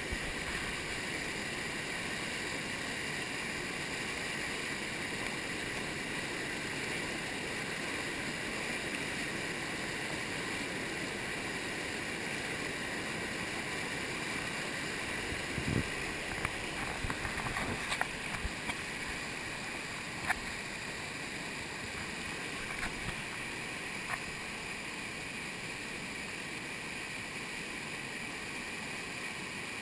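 Whitewater pouring over the falls' ledge and churning in the hole below, a steady loud rush. A few short sharp splashes or knocks come about halfway through.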